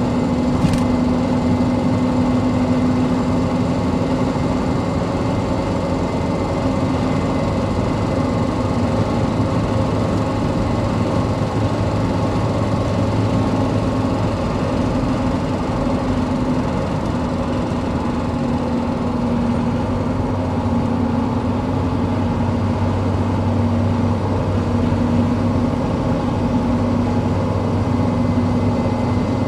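Toyota 1KZ-TE 3.0-litre four-cylinder turbo-diesel running under way, with a ticking from the engine that the owner is worried about. A steady hum of road noise comes from mud-terrain tyres. A single sharp click sounds just under a second in.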